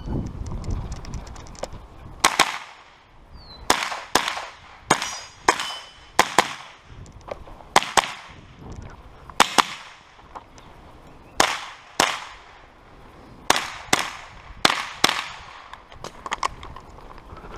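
Sig Sauer 522 SWAT semi-automatic .22 LR carbine firing a string of shots, mostly in quick pairs (double taps), each a sharp crack with a short ring.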